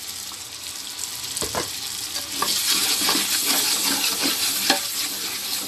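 Onion, ginger-garlic and green chilli masala sizzling in oil in a large aluminium pot, with a steel ladle scraping the pot as it is stirred. The sizzle grows louder about two and a half seconds in.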